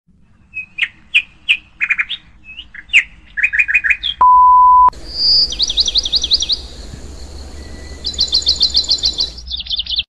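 Bird calls spliced together: a run of sharp chirps, then a steady high beep lasting under a second, then a different recording of birds giving rapid repeated trills in two bursts.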